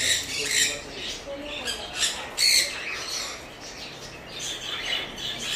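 Sun conures squawking: a series of short, harsh calls, the loudest about two and a half seconds in, with weaker calls near the end.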